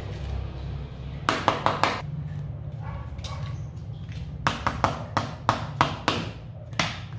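Serving spoons clacking against a plastic mixing bowl and each other while tossing fruit salad in cream: a quick run of about four knocks a little over a second in, a longer run of taps from about four and a half to six seconds, and one more near the end, over a steady low hum.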